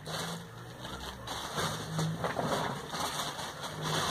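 Rustling and crinkling of plastic and cardboard packaging as cosmetic products are handled and set down, irregular, with louder bursts about two seconds in and near the end.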